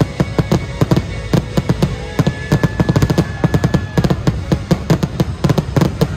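A dense barrage of aerial fireworks bursting, several sharp bangs a second, over the show's music.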